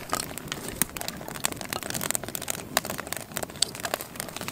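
Driftwood campfire crackling, with frequent irregular sharp pops and snaps.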